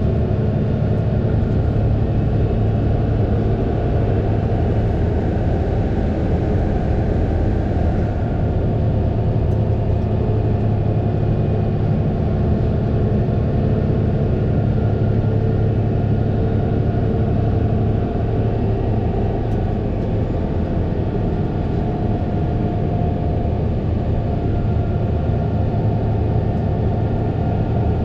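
Fendt 936 Vario tractor's six-cylinder diesel engine running steadily with a constant low hum, the engine speed holding even throughout.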